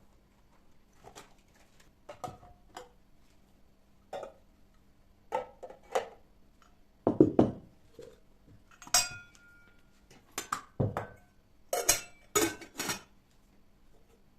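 Dishes and cutlery being handled and set down: a string of separate clinks and knocks, one of them ringing briefly about nine seconds in.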